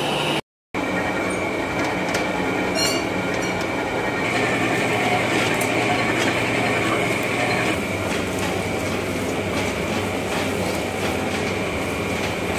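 Commercial spiral dough mixer running steadily as its hook kneads a large batch of bread dough, a low motor hum under a high whine. The sound cuts out briefly about half a second in.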